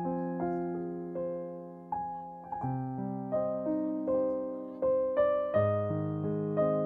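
Slow background piano music, single notes and chords struck about once or twice a second and left to ring and fade.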